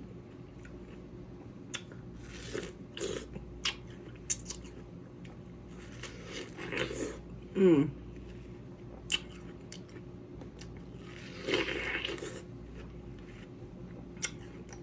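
Someone biting and chewing juicy watermelon: scattered wet crunches and clicks in irregular bursts, with a short hum about halfway through.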